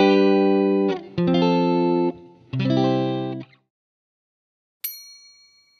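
Outro music: three held electric guitar chords, each about a second long with short breaks between them. After a second of silence, a single bright chime rings out and fades near the end.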